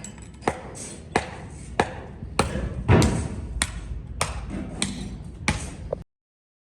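Hammer blows struck at an even pace, about one every 0.6 seconds, nine strikes in all, over a low background hum; the sound cuts off suddenly near the end.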